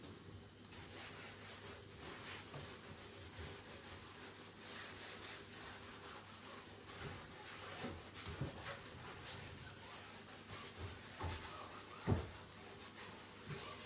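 Sponge scrubbing at a kitchen sink in faint, irregular strokes, with a few light knocks of items being handled, the sharpest near the end.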